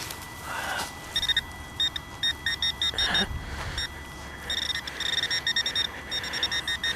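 Metal detector beeping over a buried metal target: short, high beeps at one even pitch, coming in irregular runs from about a second in.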